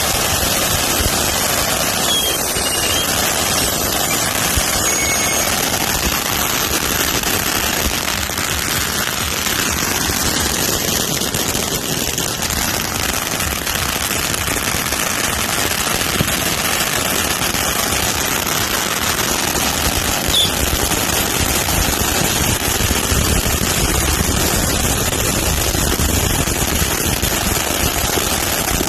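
Many safe-and-sane ground fireworks going off at once: a dense, unbroken crackling at a steady loud level, with a few short whistles in the first few seconds and once again later on.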